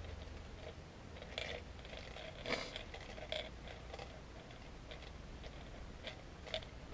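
Irregular light clicks and small knocks of jelly beans and a plastic Bean Boozled box being handled while a bean is picked out. The loudest click comes about two and a half seconds in, another near the end.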